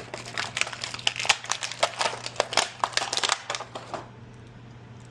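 Plastic packaging crinkling and clicking as it is handled in quick, irregular bursts that stop about four seconds in.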